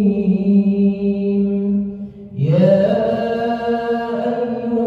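A male imam's voice chanting Quran recitation in long, held melodic notes. A little over two seconds in he breaks for a breath, then begins a new phrase that rises in pitch.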